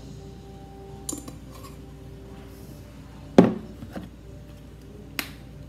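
Kitchen handling sounds as seasoning containers are picked up and used over a mixing bowl. There are a few light clicks about a second in, a sharp knock about three and a half seconds in with a smaller one just after, and another knock near the end.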